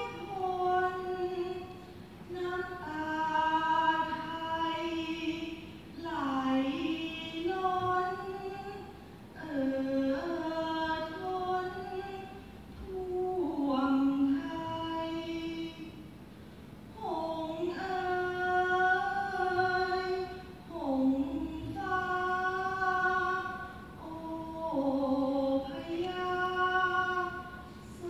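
A woman singing a Central Thai folk song in long, held phrases that bend and waver in pitch, broken by short pauses, with no clear instrument behind her.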